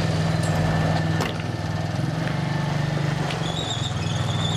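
Quad bike engine running steadily at low revs as the bike tows a small trailer slowly across a yard.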